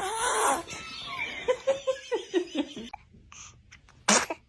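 A person laughing in short giggles, then one brief, sharp burst of breath-like noise about four seconds in.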